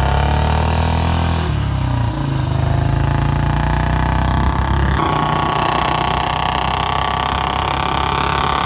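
Engine of a two-wheeler with a modified loud exhaust, running steadily. Its pitch drops about two seconds in, and a steady higher tone joins about halfway through.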